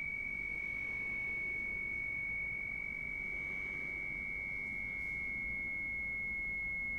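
A steady, high-pitched pure tone held without a break, over a faint low rumble.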